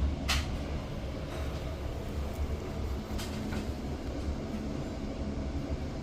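Steady low mechanical rumble with a faint hum, broken by a sharp click about a quarter second in and a fainter click a little after three seconds.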